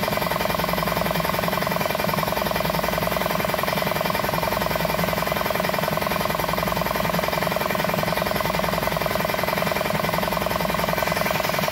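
Ironton oil-less air compressor's motor and pump running steadily with a rapid, even pulsing clatter. It keeps pumping instead of shutting off at its cut-out pressure, which the owner puts down to a fault in the pressure switch's shut-off.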